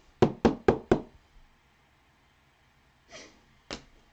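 Trading cards being handled at the table: four quick sharp taps in the first second, then a brief rustle and a single click near the end.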